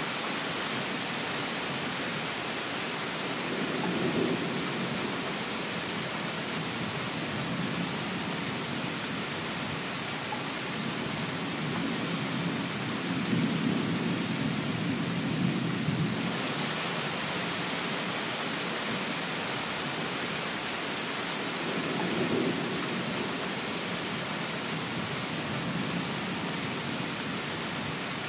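Steady rain falling with an even hiss. Low rumbles swell up about four seconds in, for a longer stretch in the middle, and again about three-quarters of the way through.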